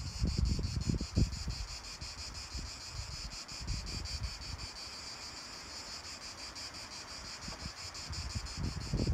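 Steady high-pitched chorus of summer insects with a fast, even pulse, over low wind rumble on the microphone that gusts in the first second or so and then settles.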